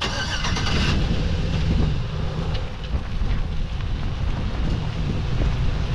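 Wind buffeting an outdoor microphone: a steady low rumble, with a brief brighter hiss in the first second.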